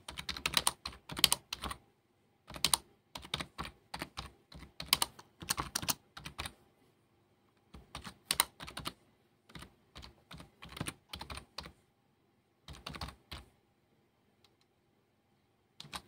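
Typing on a computer keyboard: quick runs of keystrokes broken by short pauses, stopping about two and a half seconds before the end.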